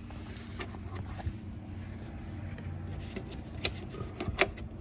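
A Phillips screwdriver backing a screw out of the anchor winch housing: light scraping and clicking of the tool in the screw head, with a few sharp clicks near the end, over a steady low hum.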